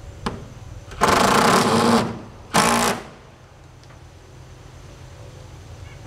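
A cordless drill driving a screw into an oak siding board: a run of about a second, then a short second burst.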